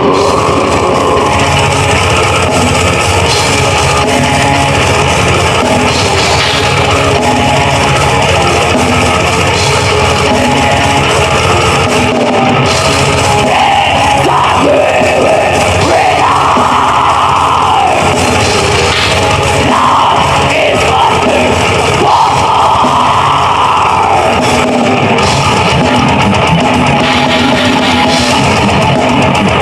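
Metal band playing: distorted electric guitars over a drum kit, loud and unbroken.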